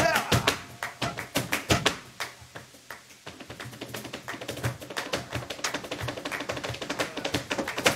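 Flamenco dancer's zapateado footwork, shoe heels and soles striking the stage: a few loud stamps in the first two seconds, then, from about halfway, a run of quick, softer taps.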